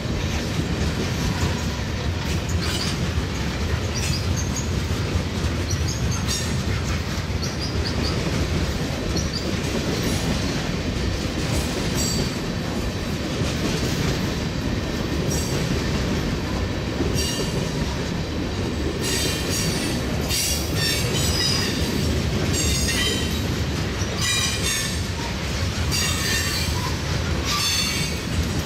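Freight train rolling past: a steady rumble of cars and wheels, with wheel squeal and clatter coming thicker in the last third.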